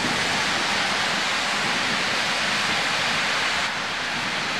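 Heavy rain pouring down in a thunderstorm, a dense steady hiss that eases slightly about three and a half seconds in.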